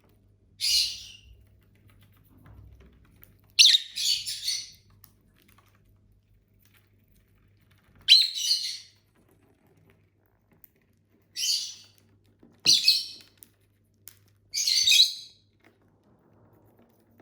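Pet lovebirds giving short, shrill chirps in separate bursts every few seconds, about seven in all, with near-quiet gaps between them.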